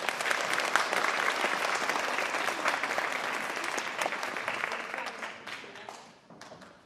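Audience applauding, many hands clapping together, fading out over the last second or two.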